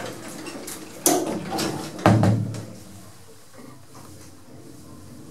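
Two loud knocks or thuds about a second apart, the second heavier and ringing briefly, over low indoor background noise.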